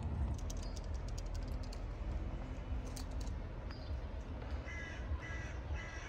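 A cat crunching dry kibble in short clicky bursts. Then, from about three-quarters of the way through, a crow cawing in a string of short calls about two a second, over a low background rumble.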